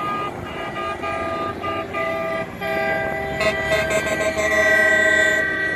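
Semi-truck air horns honking from a passing convoy: several short toots, then a longer blast about three seconds in that grows louder toward the end, over the noise of passing trucks.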